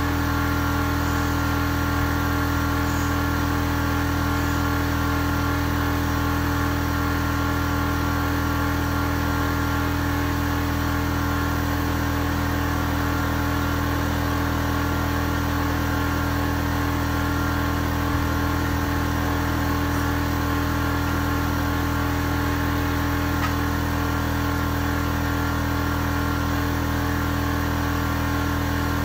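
Steady hum of a motor running at a constant speed, with no change in pitch or level.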